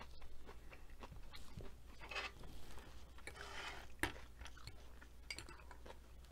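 Close-miked chewing with small mouth clicks. Midway comes a fork stirring and scraping in a glass bowl of coleslaw, with a sharp clink of the fork on the glass about four seconds in.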